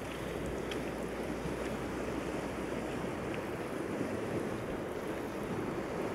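Sea surf washing steadily on a rocky shore, with wind rumbling on the microphone for the first three seconds or so.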